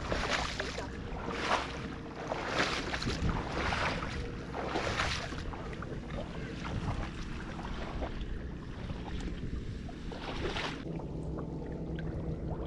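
Wading strides splashing through shallow muddy floodwater in a rice paddy, about one a second at first, easing off after about five seconds, with one more splash near the end.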